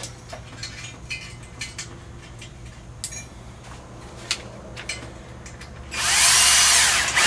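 Cordless drill-driver whirring for about a second near the end, driving the screw of a hose clamp tight around a control-arm tube. Before it, light clicks and taps of metal parts being handled.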